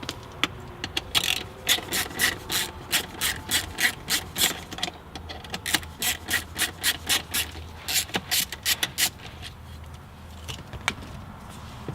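A small screw in the console trim being turned out with a hand tool: a run of short scratchy strokes, about two to three a second, that stops about nine seconds in, followed by a single click near the end.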